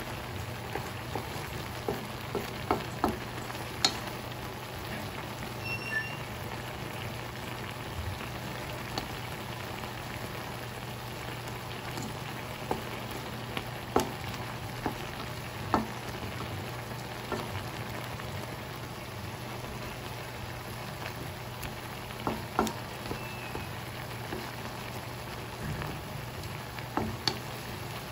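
Garlic shrimp in sauce sizzling in a wok, a steady frying hiss. Now and then a wooden spatula knocks and scrapes against the pan as the shrimp are stirred.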